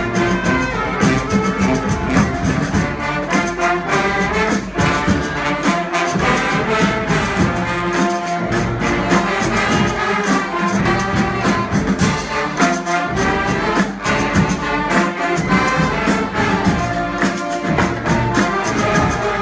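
Brass band playing live: massed horns such as trumpets and trombones carrying a tune over a steady beat.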